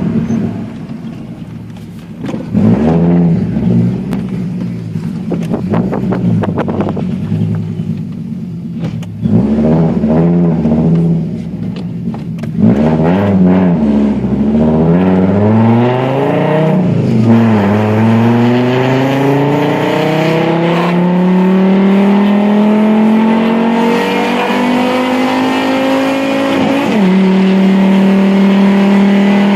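Fiat Marea 2.4 20v's five-cylinder engine through a full 2.5-inch exhaust, loud: a few quick revs that rise and fall in the first half, then a long steady climb in pitch under acceleration that drops sharply near the end and holds steady.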